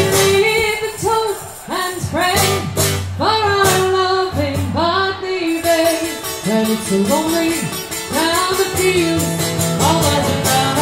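Live Irish folk band playing a slow ballad: a voice singing long, wavering notes over strummed acoustic guitar.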